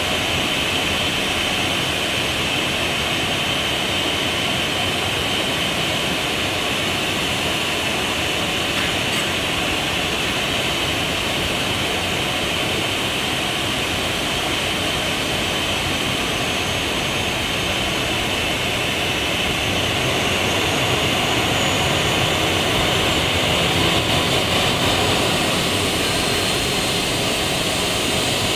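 Boeing 737-800's CFM56 jet engines running at idle during pushback: a steady high turbine whine over a broad rush, a little louder some two-thirds of the way in.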